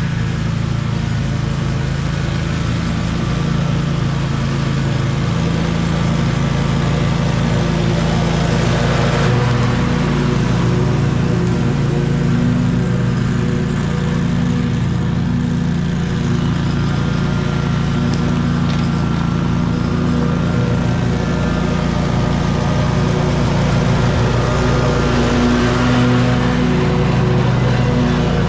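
Scag 36-inch stand-on mower running steadily with its blades engaged, mulching grass. It swells louder twice as it passes close, the second time near the end.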